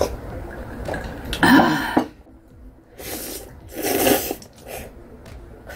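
A short cough-like burst from the eater about one and a half seconds in, then a loud slurp of spicy stir-fried ramen noodles about four seconds in.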